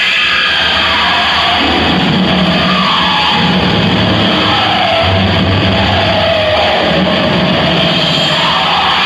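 Loud, dense noise music with distorted guitar-like tones whose pitch slides up and down over a low sustained bass drone.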